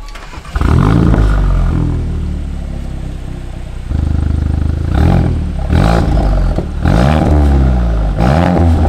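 Mk8 VW Golf GTI's turbocharged 2.0-litre four-cylinder, with a catted downpipe and Stage 2 tune, heard from behind its exhaust tips. It starts up with a flare of revs about half a second in and settles to a steady idle, then four short throttle blips near the end.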